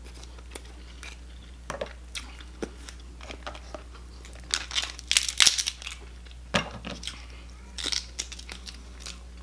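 Close-up eating sounds: chewing, with scattered crackles, crunches and tearing as cooked Dungeness crab and cabbage leaves are pulled apart by hand, a burst of them about five seconds in.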